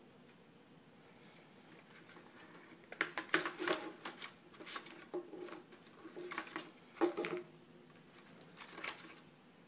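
Handling noises: scattered clicks, rustles and crinkles of something being handled and moved about, in irregular bursts from about three seconds in until near the end.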